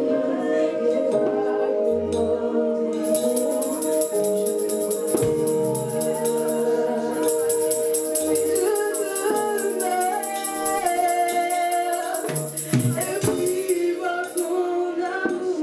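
Gospel worship music: voices singing over held chords, with a shaken jingling percussion rhythm running from about three seconds in until near the end.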